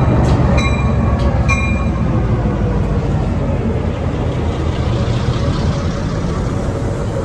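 Long Island Rail Road MP15AC diesel switcher locomotive and its train running past with a steady, heavy low rumble that eases slightly. A few short ringing tones sound about a second apart in the first two seconds.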